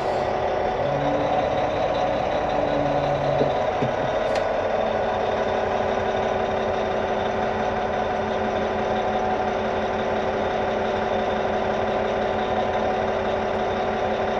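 Caterpillar 740 articulated dump truck's diesel engine running steadily as the truck creeps forward, its note shifting briefly between about one and four seconds in.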